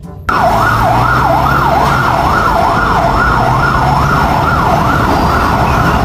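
Fire engine siren sounding a fast up-and-down yelp, about two sweeps a second, over the low rumble of the truck and street noise. It cuts in suddenly just after the start.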